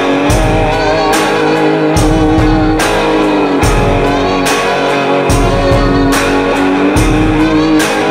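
Background music: guitar, with some bending notes, over a steady drum beat.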